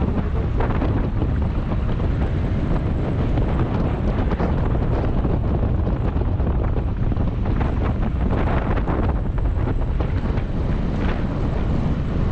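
Steady, heavy wind buffeting on the microphone of a camera riding on a motorbike at road-cycling speed, about 40 km/h.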